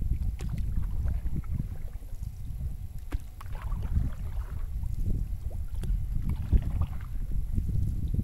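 Canoe being paddled: water swishing at the paddle strokes over a steady low rumble, with a few short sharp knocks, such as the paddle or gear tapping the hull.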